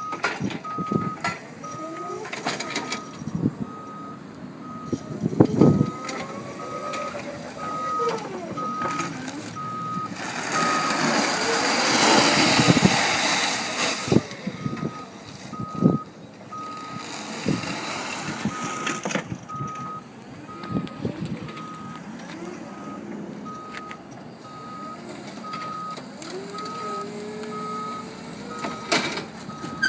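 Electric stand-up forklift's warning beeper sounding a steady single-pitch beep a little more than once a second, over the whine of its motors as it manoeuvres. A loud rushing hiss swells for a few seconds in the middle and again briefly later, with occasional clunks of the forks and pallet.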